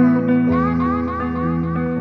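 Background music: sustained, layered pitched notes that change every half second or so, with guitar.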